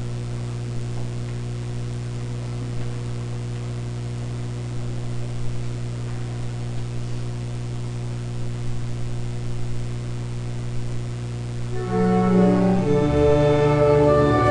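Steady electrical mains hum from the sound system. About twelve seconds in, music starts: the sustained, string-like instrumental opening of the choir's hymn.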